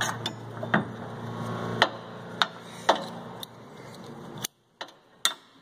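Scattered sharp metal clicks and clinks of a tractor's cable end, clevis and pin being handled, about eight ticks spread over several seconds. A steady background hum fades out in the first two seconds.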